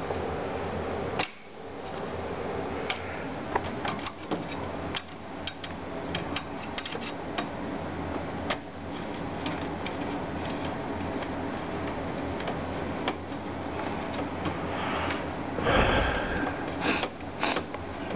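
Scattered light clicks and taps of small parts being handled while working on a desktop computer's processor and heat sink, over a steady low hum. A louder knock and rustle comes near the end.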